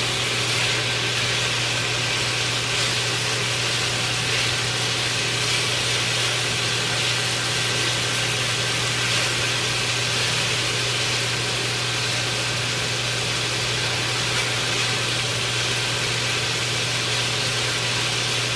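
Cubed steak sizzling as it fries in a little oil in a pan, stirred with a silicone spatula, over the steady hum of a kitchen fan.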